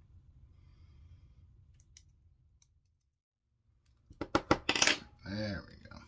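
Small metal pieces clattering on a hard surface: a quick run of sharp clicks and clinks about four seconds in, then a short wobbling ring as a piece settles.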